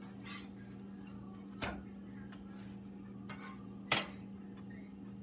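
Spatula knocking and clinking against a nonstick griddle pan and skillet: a few light clicks, with two sharper knocks about a second and a half in and near four seconds. A steady low hum runs underneath.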